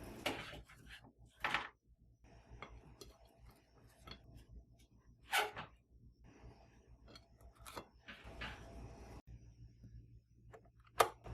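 Kitchen handling sounds: about five separate knocks and clatters of things being moved, opened and set down, with the sharpest knock near the end.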